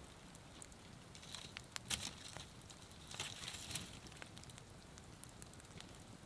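Faint rustling with scattered small clicks and knocks: a person moving about and handling things inside a tipi frame of wooden poles, with the sharpest knock about two seconds in.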